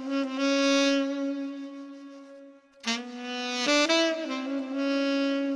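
Instrumental music: a solo melody of long held notes, with a short quick run of notes about three and a half seconds in.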